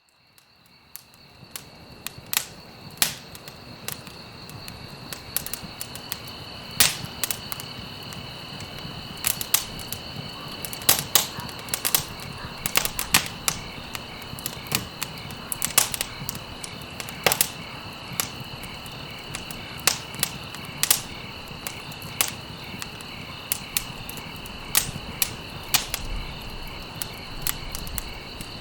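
Campfire crackling, with frequent sharp pops at irregular intervals over a steady crackle, and crickets chirping steadily behind it. The sound fades in over the first second or two.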